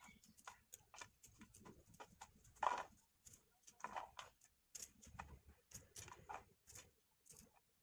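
Faint, irregular tapping and clicking of kitchen work, a few light knocks a second with a slightly louder knock near the start and another in the middle.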